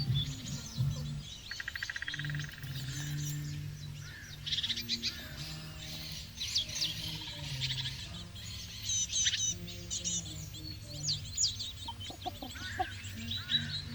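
Birds chirping and calling throughout, with many short high notes and quick sweeps and a rapid trill about two seconds in.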